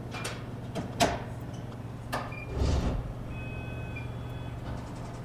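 Sharp clicks of an aluminium servo housing being pushed against the probe of a Mitutoyo height gauge, the loudest about a second in, then a short scraping slide. The gauge gives short electronic beeps, one brief and one longer, as it scans the bore, over a steady low hum.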